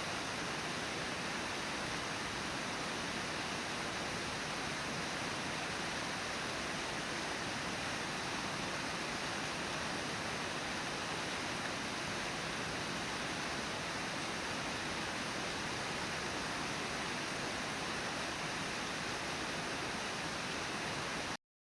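Steady rush of the Brooks River pouring over Brooks Falls, an even noise with no distinct events, which cuts off abruptly near the end.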